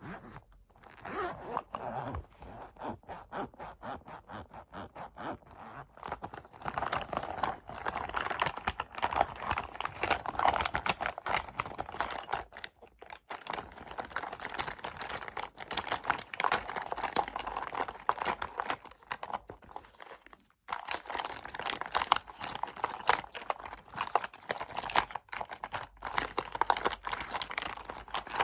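Fingernails tapping rapidly on small cosmetic containers: a quick, dense run of sharp clicks, briefly stopping about 13 seconds and 20 seconds in.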